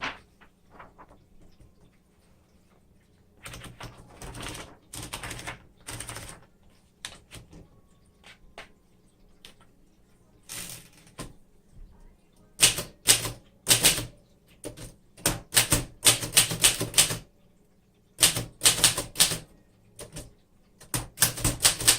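Keys of a 1938 Remington Model 5 portable typewriter striking in a typing test. A few scattered keystrokes come first, then from about halfway through, quick runs of crisp strikes separated by brief pauses.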